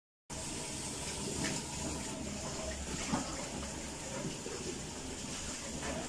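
Water running steadily from a shower hose and tap in a tiled bathroom, with a short click about three seconds in.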